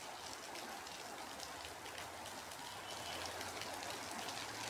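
Heavy rain pouring down: a steady hiss of falling rain with many small drop ticks on wet surfaces.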